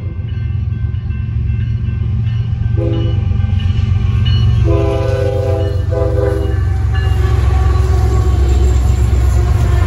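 Union Pacific freight locomotives approaching and rolling through a grade crossing: the lead locomotive's air horn gives a short blast about three seconds in and a longer blast with a brief break around five to six seconds. Under it a diesel rumble grows steadily louder, and wheel and rail noise comes in near the end as the engines pass.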